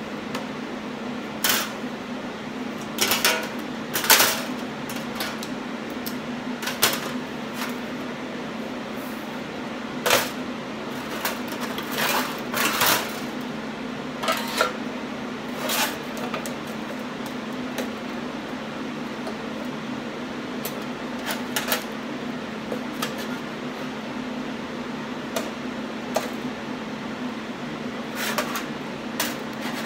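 Irregular clinks and clanks of steel: sheet-metal pieces, locking pliers and clamps knocked and set down on a steel welding table, some with a short ring, more often in the first half. Under them runs a steady low hum.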